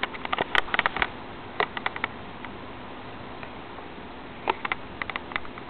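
Clusters of light, sharp clicks and ticks, a few at a time, over a steady hiss.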